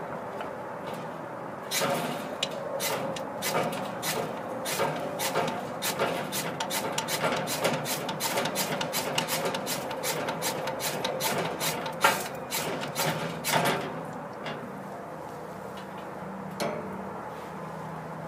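Ferro rod struck over and over with a knife: a quick, irregular run of sharp rasping scrapes, about two or three a second, as he tries to light a pile of pine wood shavings. The strikes start a couple of seconds in and stop a few seconds before the end.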